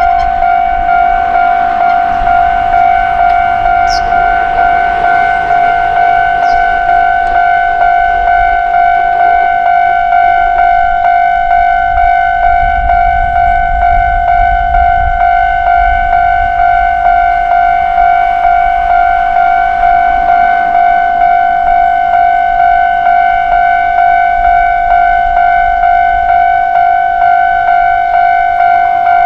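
Japanese level-crossing warning bell ringing its 'kan-kan' alarm, one clear pitched ding repeated evenly and without a break, signalling that a train is approaching.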